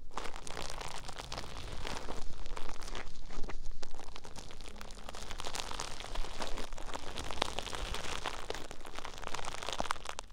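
Close-miked ASMR crunching and crinkling: an object rubbed and squeezed against the microphone, a dense, uneven run of small crackles.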